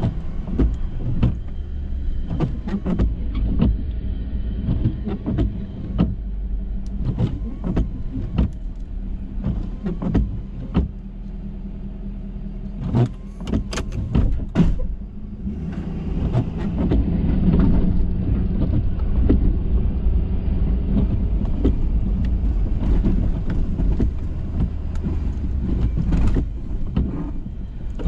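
Ford F-350 pickup truck running while plowing snow, with its engine hum steady throughout and frequent short knocks and clunks. It grows louder and fuller about halfway through.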